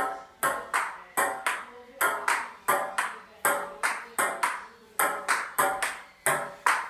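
Table tennis rally: a ping-pong ball clicking back and forth off paddles and a glass-topped table, a quick, steady run of sharp hits at about three a second.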